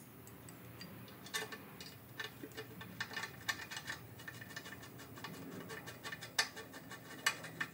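Hand screwdriver driving the screws that fasten a flue flange to the rear outlet of a wood-stove oven: faint, irregular clicks and scrapes of metal, with a few sharper clicks.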